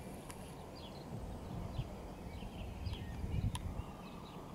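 Small birds chirping in short, scattered notes over a low, uneven rumble of wind on the microphone.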